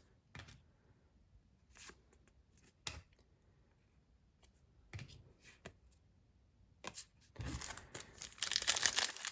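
Scattered light clicks of trading cards being handled, then, about seven seconds in, a foil card-pack wrapper being torn open and crinkling.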